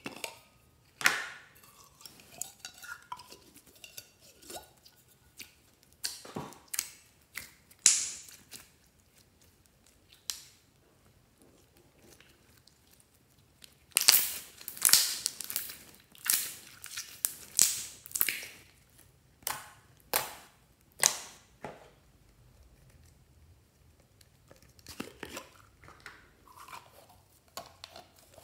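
Glossy slime squeezed and pressed between hands, giving irregular wet crackles, pops and squelches, with a dense run of them about halfway through.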